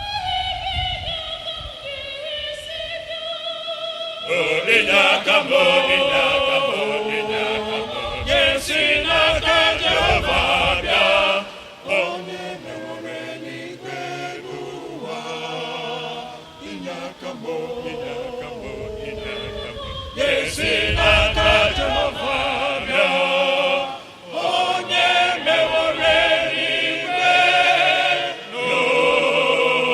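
A church choir singing together, sustained voices moving through a song with short pauses between phrases.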